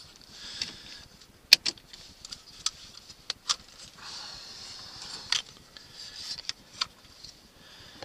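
Sharp plastic clicks and light clatter as the electrical connector is unplugged from a Mercedes-Benz S-Class shifter assembly and the assembly is handled. The clicks are scattered and uneven, the loudest about a second and a half in.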